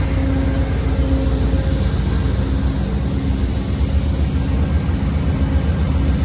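Amtrak GE P42DC diesel locomotives idling at a standstill: a steady low rumble with a faint steady hum over it.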